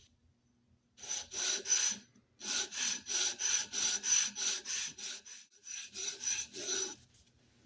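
Cast iron sole of a Stanley No. 51 spokeshave rubbed back and forth on sandpaper, about three quick scraping strokes a second in three runs with brief pauses, truing the sole flat.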